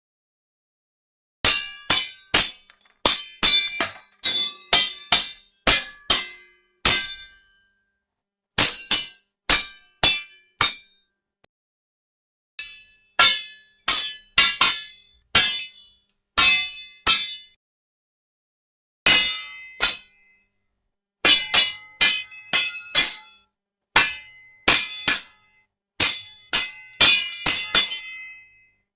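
Sword blades clashing: sharp metal-on-metal clangs, each with a short ringing tail. They come in quick flurries of several strikes, separated by pauses of a second or two.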